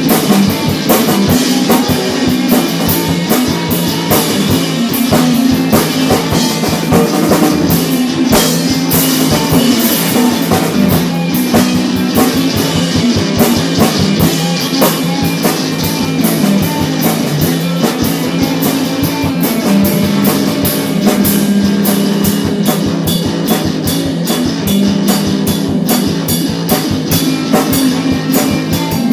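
A rock band playing, with a drum kit keeping a steady, busy beat under guitar.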